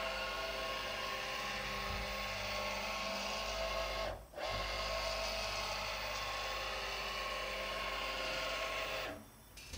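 A JMC iHSV57 100-watt integrated servo motor spins a Taig mill's leadscrew at full speed, 150 inches per minute (about 3000 RPM), giving a steady whine of several tones over a low hum. It is running smoothly with no vibration on the improved coupler and mount. The sound drops out briefly about four seconds in and again near the end.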